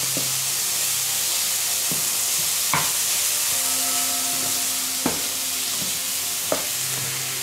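Grated cauliflower rice sizzling as it fries in a hot non-stick frying pan while it is stirred with a slotted spatula, with a handful of sharp taps of the spatula against the pan.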